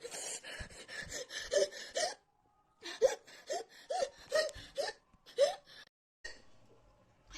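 A woman hiccuping and gasping in quick succession, about ten short catches of the breath in two runs with a brief pause between them. These are tearful, distressed gasps from the burn of an extremely hot chili chip.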